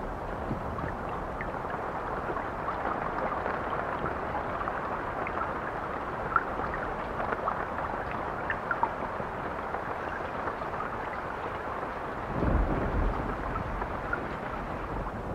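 Steady rain with scattered small drop ticks, and a low rumble of thunder swelling briefly about twelve seconds in.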